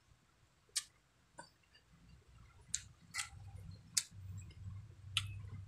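Close-miked eating with the mouth: about half a dozen sharp, wet clicks spread irregularly over a few seconds, with a low chewing rumble building from about halfway through.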